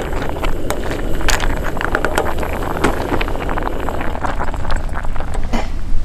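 A pot of clam noodle soup boiling hard on a portable gas stove, bubbling and spattering in a dense run of small crackles over a steady low rumble; the broth has boiled over.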